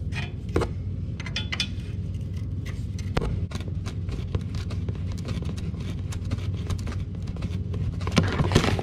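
Oil drain plug on a 2002 Suzuki GSX-R600 being unscrewed by hand, with small clicks and scrapes, over a steady low hum. Near the end the plug comes free and oil starts splashing into a plastic drain pan.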